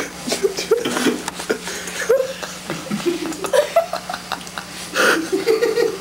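Several people laughing and chuckling in short bursts, mixed with indistinct voices, over a steady faint low hum.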